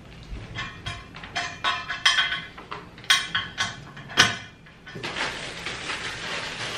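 Hard plastic clicks and knocks as caster wheels are handled and pushed into a gaming chair's five-star base: a quick irregular run of sharp clacks over the first four seconds or so, easing into softer handling noise.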